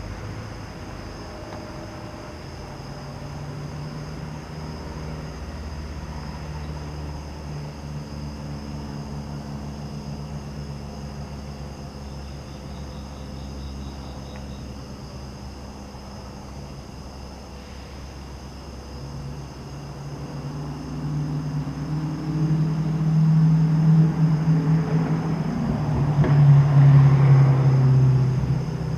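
Cessna 172S Skyhawk SP, a single-engine propeller plane, flying overhead at low altitude. The steady drone of its four-cylinder piston engine and propeller grows louder over the last third and is loudest near the end as it passes.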